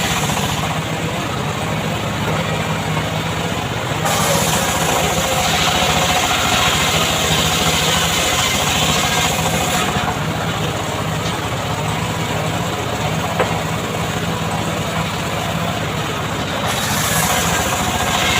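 Homemade long-bar chainsaw (srekel) engine running continuously at a steady pitch. Its sound turns louder and brighter for several seconds at a time, from about 4 to 10 seconds in and again near the end, as the saw works through mahogany wood.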